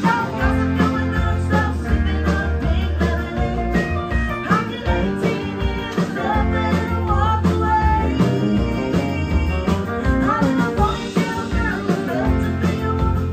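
Live country band playing a song: a woman singing lead over electric guitars and drums, with a steady drum beat and a heavy bass line.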